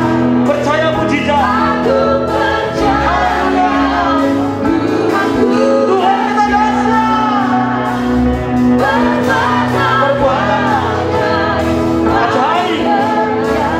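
Live worship song: a man and women singing into microphones over keyboard accompaniment with steady held chords.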